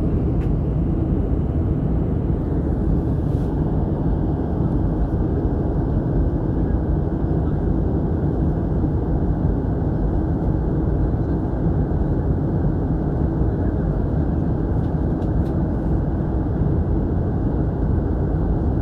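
Steady engine and rushing-air noise inside a jet airliner's passenger cabin in flight.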